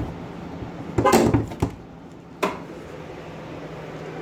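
A few short knocks and clicks, clustered about a second in with one more a little later, over a low steady hum.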